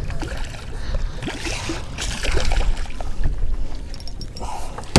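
Water splashing and wind noise aboard a small fishing boat, over a steady low rumble, with one sharp knock near the end.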